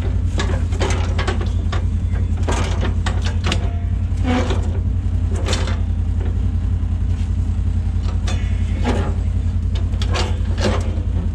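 A Polaris RZR 900 idling steadily under repeated metal clicks and clunks from a Click&Go snowplow blade being angled, its pivot and latch knocking as it moves.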